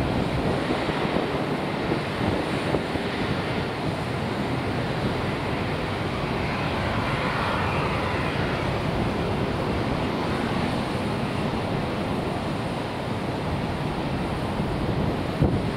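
Airbus A340-600's four Rolls-Royce Trent 500 jet engines running at taxi idle as the airliner rolls along the taxiway, a steady engine noise mixed with wind on the microphone.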